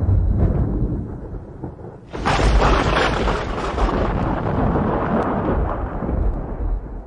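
Thunder: a low rumble dies away, then about two seconds in a sharp thunderclap breaks and rolls on for several seconds before fading near the end.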